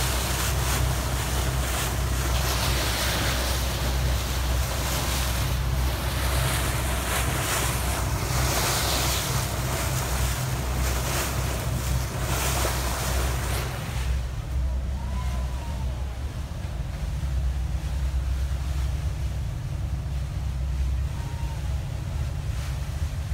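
Fast ferry under way: a steady low engine rumble beneath rushing wind and water noise from the bow wave. The wind and water hiss falls away about fourteen seconds in, leaving mostly the engine rumble.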